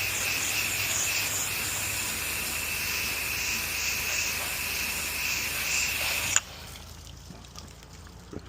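Pressure washer wand spraying water: a steady high hiss that cuts off suddenly about six seconds in.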